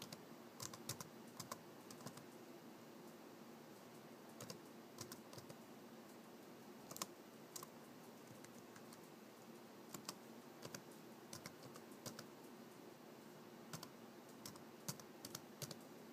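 Faint, slow typing on a Toshiba laptop keyboard, done with one hand: scattered single key clicks and short runs of keystrokes, with pauses of a second or more between them.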